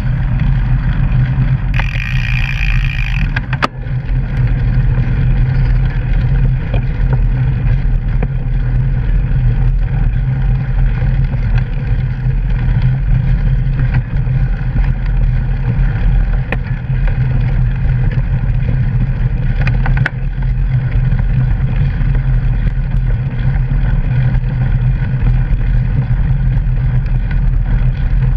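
Steady rolling rumble of a mountain bike's knobby tyre on a gravel trail, picked up by a camera mounted on the bike, with a brief hiss about two seconds in and a short knock soon after.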